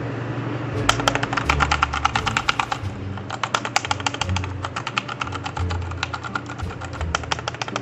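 Fast typing on a Zebronics Nitro Pro mechanical keyboard with Outemu Red switches: a rapid run of key clacks starting about a second in, with a brief pause near the three-second mark.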